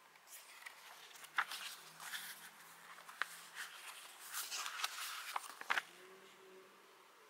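Thin paper pages of a timetable booklet being flipped by hand: rustling with a few sharp paper snaps. It stops about six seconds in.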